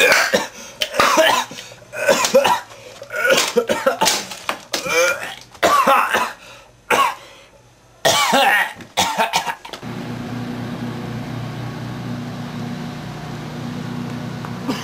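A person coughing hard in a long series of fits, a dozen or so sharp, partly voiced coughs, acted out as whooping cough. About ten seconds in the coughing stops and a steady low hum takes over.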